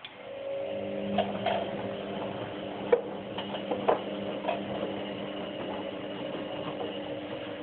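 White-Line VW1447A4 washing machine starting its prewash: a steady hum with several fixed tones sets in at the start, with a few sharp clicks and knocks over it.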